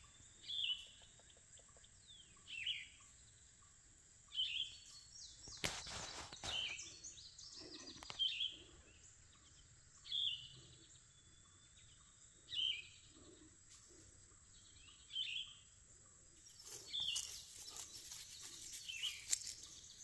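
A bird calling, a short slurred note repeated every two to three seconds, with a brief rustle about six seconds in.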